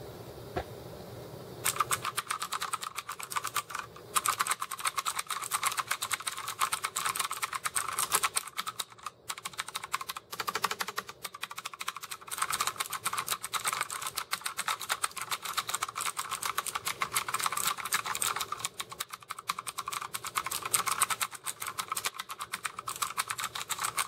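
Fast typing on a Redragon K553 mechanical keyboard with Outemu Blue clicky switches: a dense run of sharp key clicks starting about two seconds in, with a few short breaks.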